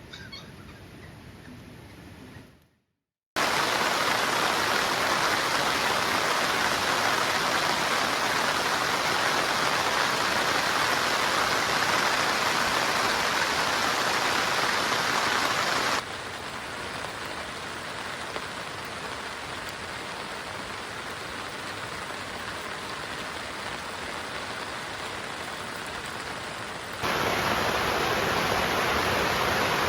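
Heavy rain pouring down: a steady, dense hiss that starts abruptly about three seconds in, drops to a lower level about halfway through, and comes back louder near the end.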